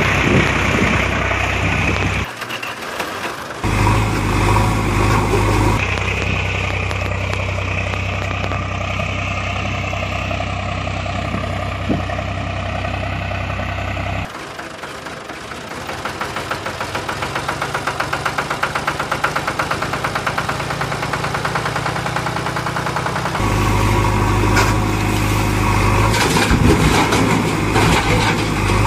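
Engine running and idling, heard as a series of segments that switch abruptly every few seconds.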